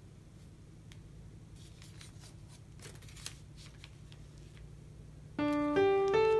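Faint crackling and soft clicks of origami paper being creased and pressed flat by hand. About five seconds in, a piano melody starts and becomes the loudest sound.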